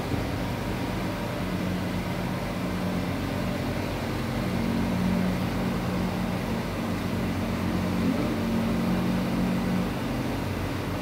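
Steady mechanical hum with a low drone that grows stronger from about four seconds in and drops back near the end.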